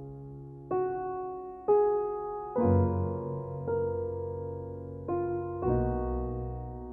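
Slow background piano music: notes or chords struck roughly once a second, each ringing on and fading before the next.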